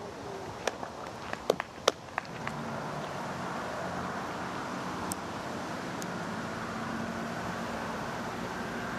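Several sharp clicks or knocks in the first couple of seconds, then steady outdoor background noise with a low, even hum.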